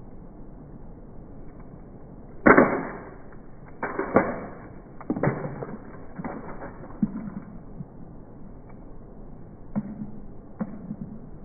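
Heavy blows smashing objects: one loud crash about two and a half seconds in, then a string of smaller knocks and crashes over the next few seconds, and two more light hits near the end.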